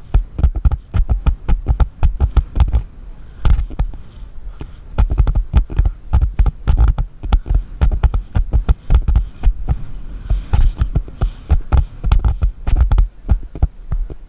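Horse cantering on an arena's sand footing: a steady rhythm of dull hoofbeat thuds, mixed with the knocks and jolts of a camera mounted on the moving horse and rider. The thuds ease off briefly twice.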